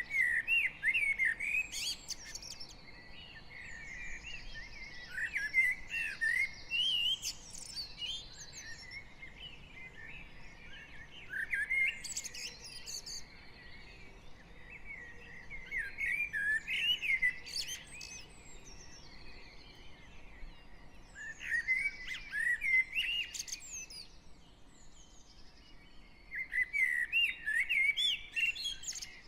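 Spring dawn chorus of garden songbirds: one bird repeats a loud, rapid song phrase of two to three seconds about every five seconds, with fainter birdsong in the gaps.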